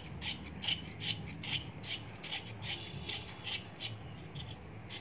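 Kitchen knife scraping the ridged skin off a pointed gourd (parmal), in short repeated strokes about three a second.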